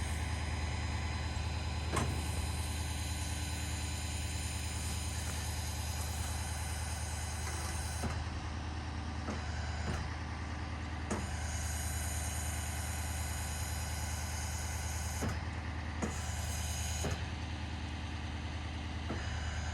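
An engine running steadily at idle, a constant low hum, with a few short knocks and clicks over it.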